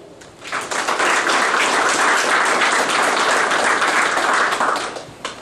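Audience applauding for a few seconds, starting about half a second in and dying away near the end.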